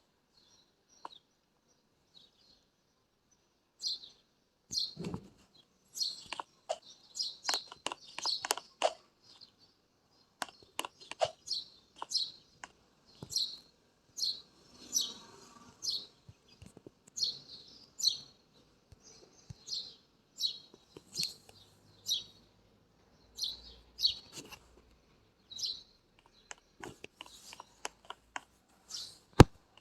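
Birds chirping in short, repeated high notes, several a second, with sharp clicks and a dull knock about five seconds in.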